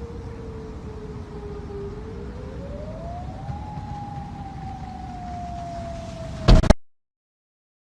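Outdoor tornado siren wailing over a heavy low rumble: its pitch sinks slowly, climbs for about two seconds, then sinks again. About six and a half seconds in, a sudden loud burst, and the audio cuts to dead silence.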